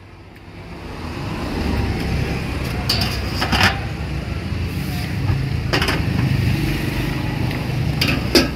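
Stainless steel steamer pots and lids clanking several times as a momo steamer is handled and its lid lifted, the loudest clank near the end, over a steady low rumble.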